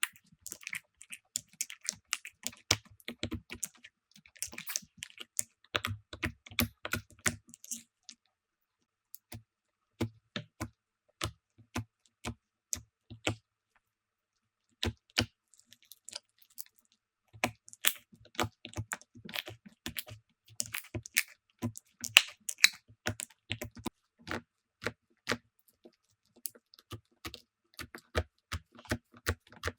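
Slime being pressed and poked by hand, giving rapid irregular sticky clicks and small pops, with two short pauses.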